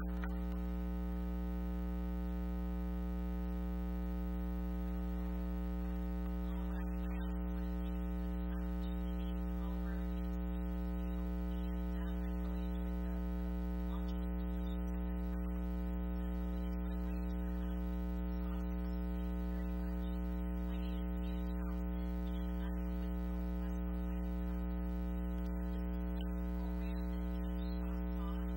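Steady electrical mains hum: a low buzz with a ladder of overtones, unchanging in level.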